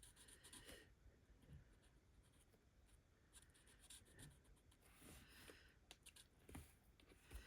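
Faint scratching of a marker on paper as a design is coloured, with a few soft knocks.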